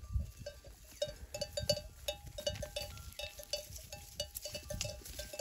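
Bells on a grazing flock of sheep, clinking irregularly at a few different pitches.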